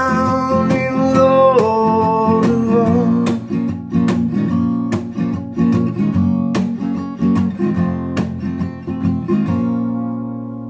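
Acoustic guitar strummed in a steady rhythm. A singing voice holds the last sung note for about the first three seconds, then the guitar plays on alone. It ends on a final chord that rings out and fades.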